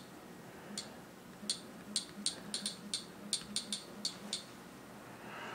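Typing on a Samsung Galaxy Tab 10.1's on-screen keyboard: about a dozen short, high-pitched key clicks at an uneven pace, stopping about a second before the end.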